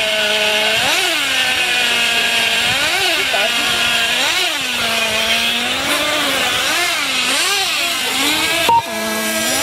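Several two-stroke nitro engines of RC off-road racing cars running at once, revving up and down around the track. The pitch rises and falls in repeated swoops, roughly once a second, with the engines overlapping.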